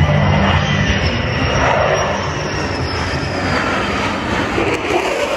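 Loud, steady engine noise of an aircraft flying past.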